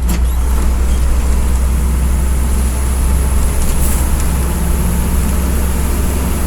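Intercity coach under way, heard from inside the cabin: a steady low drone of engine and road noise.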